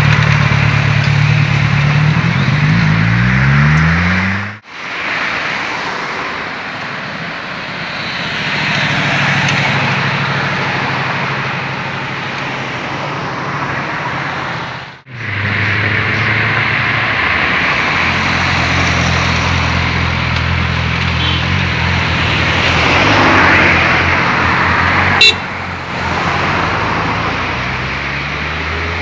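Sport motorcycle engine revving higher as it pulls away, the pitch climbing for a few seconds until it cuts off abruptly. Then a steady engine hum with road and traffic noise, broken by another abrupt cut, and one sharp click near the end.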